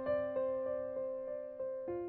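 Background piano music: an evenly paced run of single notes, about three a second, over a held low note that changes near the end.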